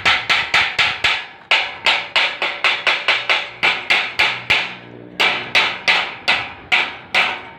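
A hammer striking metal rapidly, about five sharp, ringing blows a second, in runs broken by two short pauses.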